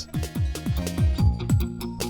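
Background music: an electronic track with a quick run of low notes that each fall in pitch, about four a second, over steady held tones.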